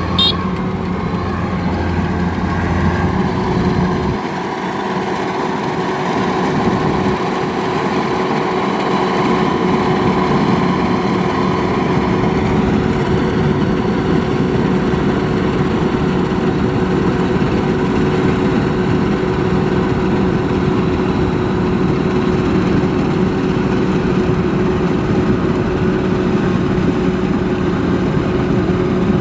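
Kubota DC-93 combine harvester's four-cylinder turbocharged diesel engine running steadily, with a constant whine over the drone. A deeper low hum drops away about four seconds in.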